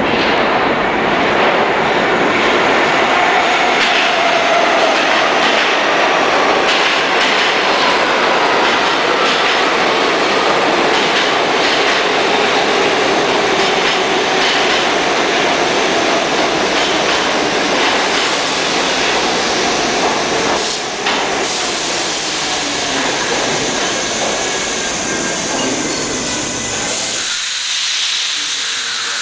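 New York City subway train running along the platform: a steady, loud rumble of wheels on rail with faint high squeals and whines gliding in pitch. About two seconds before the end, the low rumble drops away suddenly as the train comes to rest.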